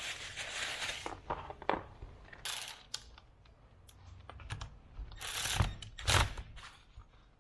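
Irregular metallic clicks and short rattling bursts as the four bolts are fitted and run in to close up a power steering pump housing, the loudest bursts about a third of the way in and again near the end.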